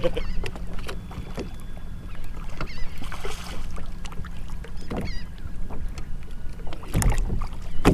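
Choppy water lapping against a kayak hull under a steady low wind rumble on the microphone, with scattered light knocks and two louder thumps near the end.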